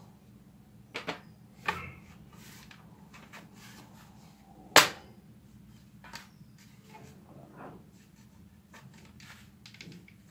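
Hard plastic parts of a toy spring airsoft rifle being handled and fitted together: light clicks and knocks about a second in, then one sharp snap about five seconds in, the loudest sound, as a part locks into place, followed by a few softer handling clicks.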